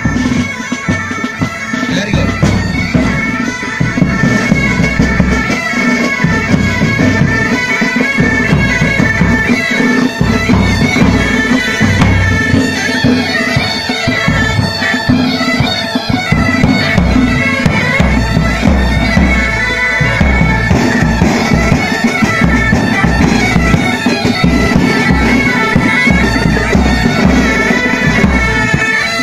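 Pipe band playing: Great Highland bagpipes sound a melody over their steady drones, with snare and bass drums beating along.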